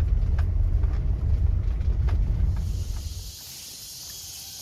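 A low rumble that cuts off about three seconds in, giving way to a steady, high-pitched drone of insects such as cicadas or crickets in tropical forest.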